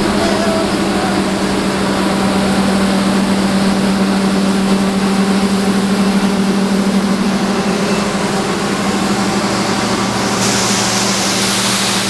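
Heavy diesel engine idling steadily with a low, even hum. A hiss joins near the end.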